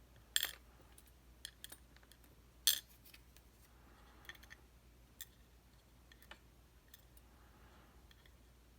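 Small metal clicks and taps from handling the tiny pins, springs and tools of a disassembled dimple lock: two sharper clicks near the start and about a third of the way in, then scattered light ticks.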